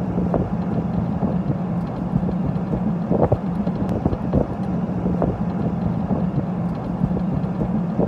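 Wind buffeting the microphone over the steady drone of a moving pickup truck's road and engine noise, with a few irregular bumps.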